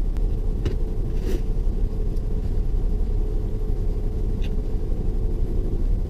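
Steady low rumble inside a car with the engine running, with a few faint clicks.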